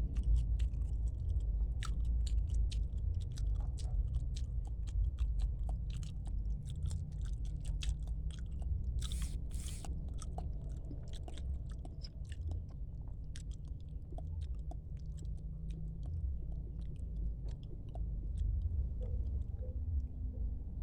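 A person chewing food close to the microphone, with many small wet mouth clicks over a steady low hum, and two brief louder noises about nine seconds in.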